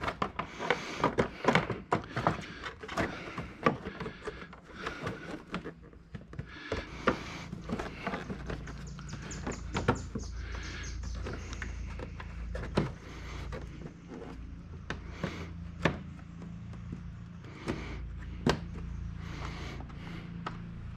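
Plastic body panels of a Can-Am Spyder RT being handled and pushed into place: a run of clicks, knocks and light rattles, densest in the first few seconds. A steady low hum sits underneath from about seven seconds in.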